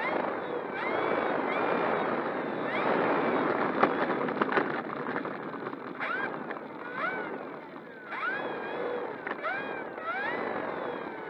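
Electric motor and propeller of an E-flite Air Tractor 1.5 m RC plane, heard from right beside the prop, over a steady rush of prop wash. The motor whine repeatedly rises quickly in pitch and then levels off as the throttle changes. A few sharp clicks come near the middle.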